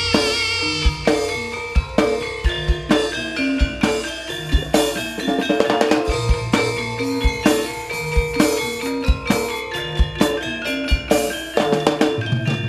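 Live Javanese jaranan music played by an ensemble: drums keeping a steady beat with sharp hits, over struck pitched instrument notes, with no singing.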